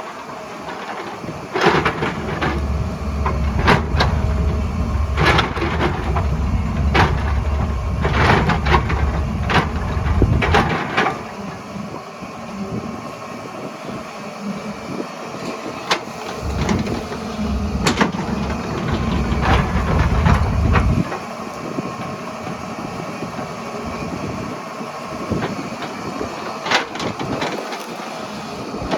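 Hydraulic excavator at work: its diesel engine runs and twice swells into a heavy low labouring rumble for several seconds under load, while irregular sharp clanks and knocks of bucket, tracks and rock come throughout.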